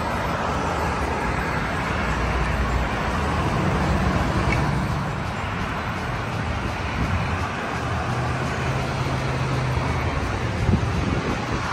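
Road traffic passing on a roadway: steady tyre and road noise with the hum of vehicle engines rising and fading twice. There is a sharp knock near the end.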